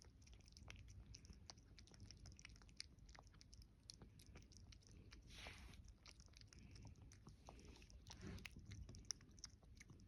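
A cat chewing its food, faint, with many small quick clicks of crunching and biting. A brief breathy swish a little past halfway.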